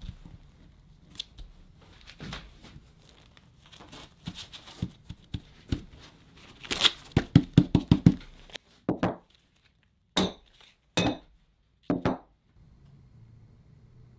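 Masking tape being pulled off the roll, torn and smoothed down by hand: rustling and crinkling, a quick rattling run as tape unrolls, then four short rips near the end.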